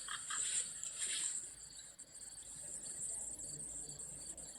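Crickets chirping: a steady high trill, with rapid pulsed chirps of about six a second in the first second that then thin out to a fainter, quicker pulsing.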